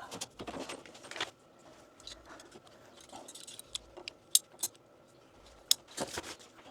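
Rustling and handling of PEX tubing and fittings as the lines are set in place, with several sharp light clicks and rattles of small hard parts.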